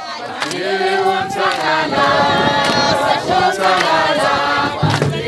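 A group of women singing a Zulu ceremonial song together in chorus, unaccompanied, with long held notes.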